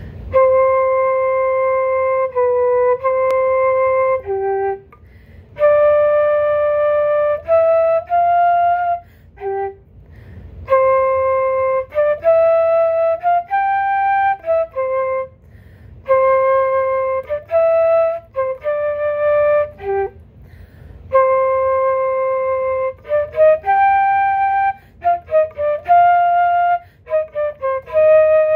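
Solo concert flute playing a slow étude melody in the middle register: held and stepping notes in phrases of a few seconds, broken by short pauses for breath, with quicker, shorter notes near the end.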